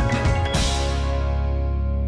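Background music: a drum beat that stops about half a second in, leaving a held chord over a steady deep bass note.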